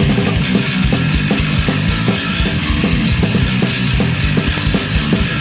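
Punk rock band playing live: distorted electric guitars, bass and fast, driving drums in an instrumental passage with no vocals.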